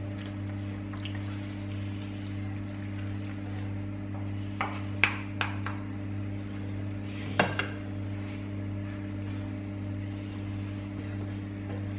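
Wooden spatula stirring in a wok and knocking against the pan: three sharp knocks a little before the middle and two more a couple of seconds later. A steady low hum runs underneath.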